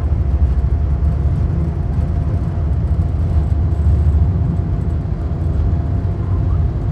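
Steady low rumble inside the cabin of a Boeing 747-8, from its engines and the airflow, with a faint steady tone above it.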